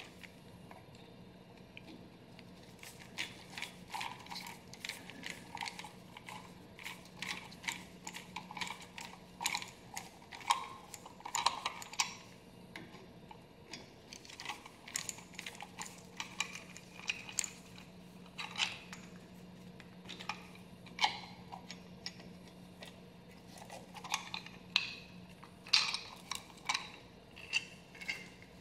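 Screwdriver turning out the small screws of a plastic amber marker-light lens: a run of irregular small clicks and ticks of metal on screw heads and plastic. A faint steady hum sits underneath.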